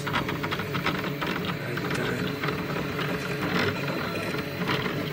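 Velleman Vertex 3D printer running a print: its stepper motors whir and buzz, with rapid, uneven chattering over a steady low hum as the head and bed move.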